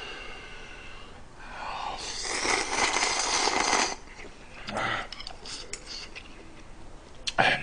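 A person slurping ramen noodles, one long loud slurp of about two seconds, followed by a few short clicks and mouth sounds.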